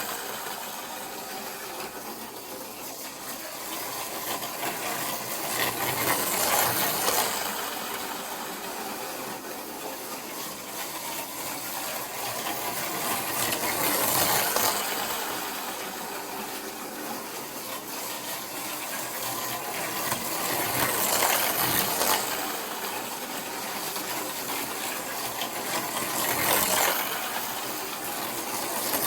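Micro slot cars running laps on their track: a steady mechanical noise that swells four times as the cars come past close by.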